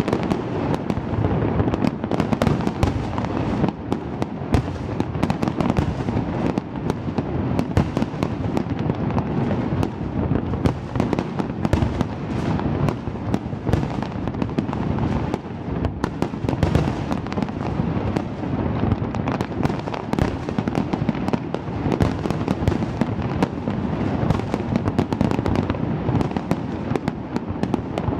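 Large fireworks display going off continuously: rapid bangs and crackles overlapping many times a second, with no break.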